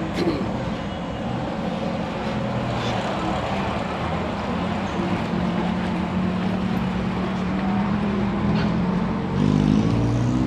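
Street traffic: a car engine running close by with a steady low hum over the general noise of passing vehicles, getting louder near the end.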